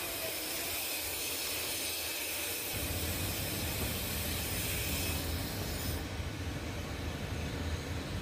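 Steady background noise: a hiss with a low rumble that comes in about three seconds in, the highest part of the hiss thinning out near the end.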